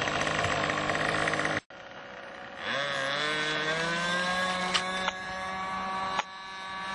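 Model-airplane engine running steadily, then, after an abrupt cut, another model-airplane engine throttling up with its pitch rising and then holding steady at full power.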